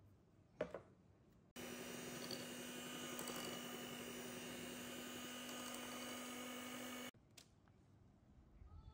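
A short knock, then an Electrolux electric hand mixer running steadily, its beaters whisking thick butter-cake batter in a glass bowl. The motor hum cuts in suddenly and cuts out suddenly after about five and a half seconds.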